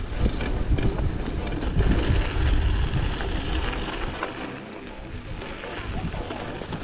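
Wind buffeting the microphone of a moving bicycle, a low rumble over the rolling noise and small ticks of the bike. The rumble eases off about halfway through and builds again near the end.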